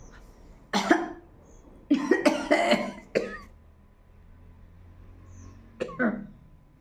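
A woman coughing in short fits: once about a second in, a quick run of coughs at two to three seconds, and two more near the end. The coughing is set off by a very hot chili pepper irritating her nose and throat.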